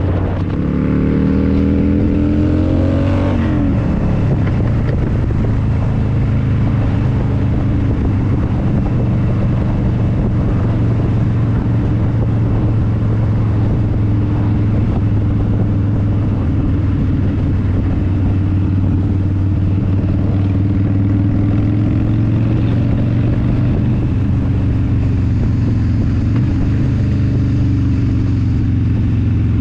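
Motorcycle engine at road speed, heard through a helmet chin-mounted GoPro Hero9, with steady wind and road noise. About a second in, the engine note rises as the bike accelerates, then it settles into a steady cruise.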